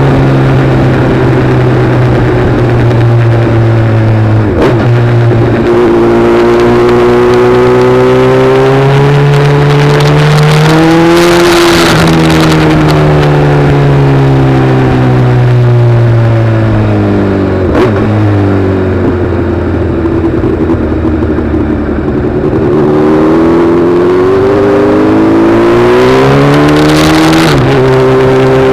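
A vehicle's engine running under way, its pitch climbing as it pulls and sinking as it eases off. The pitch drops suddenly about five, eighteen and twenty-seven seconds in.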